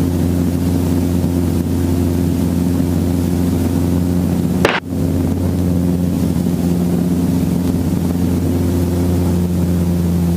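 Piston-engined helicopter hovering, its engine and rotor making a steady droning hum, with one brief click about halfway through.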